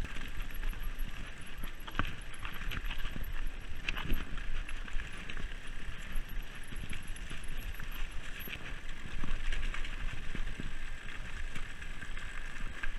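Mountain bike rolling down a rocky trail: tyres crunching over loose stones and the bike rattling, with many sharp knocks from bumps. A fast, high ticking from the coasting freewheel hub runs underneath.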